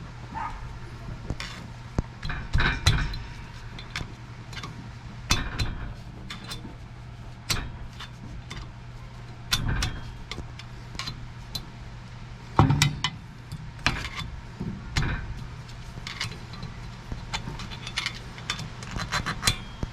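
Irregular metal clinks and knocks of tools and parts being handled during a wheel-bearing job, a few of them heavier, over a steady low hum.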